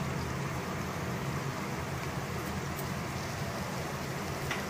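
Steady low hum and hiss of background noise, with a faint click near the end.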